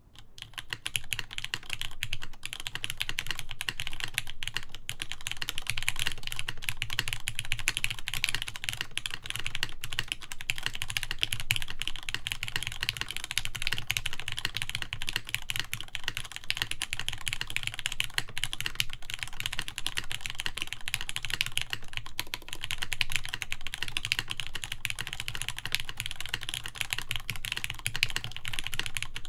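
Fast, continuous typing on a Mode Sonnet mechanical keyboard with Krytox 205g0-lubed Gateron X linear switches, GMK keycaps and a full aluminium plate; the keystrokes start abruptly and run on as a dense stream of clicks.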